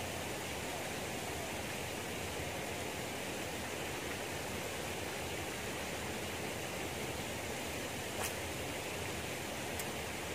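Steady rushing noise of flowing water in a canal, with two short clicks near the end.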